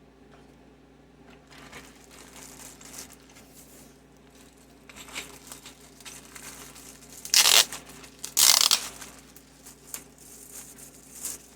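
Keycap shipment's packaging being opened by hand: rustling and crinkling, with two loud ripping tears about a second apart past the middle.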